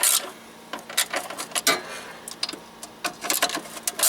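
Hand tools and small metal parts clicking and clinking in irregular short knocks, with a quick cluster of clicks about three and a half seconds in.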